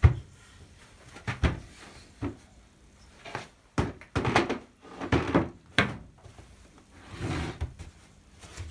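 Irregular wooden knocks and clunks as a wooden window frame is handled and worked on to get its sills off, the loudest knock right at the start.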